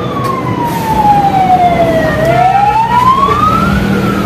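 Wailing siren, its pitch sliding slowly down for about two seconds, climbing back up, then starting to fall again near the end.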